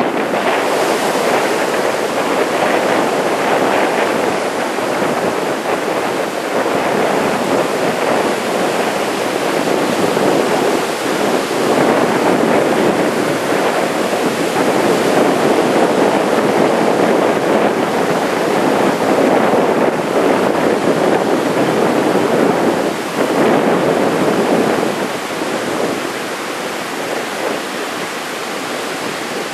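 Heavy typhoon surf breaking on the beach: a continuous rushing wash that swells and eases over several seconds, dropping off somewhat near the end, with some wind on the microphone.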